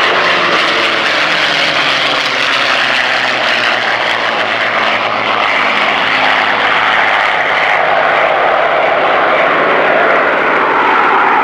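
The Merlin V-12 engines of several P-51 Mustangs running as the fighters fly past. Their pitch slides down over the first couple of seconds as one passes, and the sound grows a little louder near the end.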